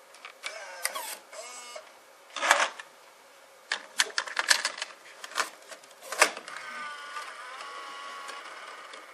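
Sony EV-C8u Video8 cassette deck's eject mechanism whirring briefly as the cassette compartment opens, then an 8mm cassette rattling in with a string of sharp plastic clicks and clacks as the lid is shut. After that the deck's mechanism runs with a steady, slightly pitched whir.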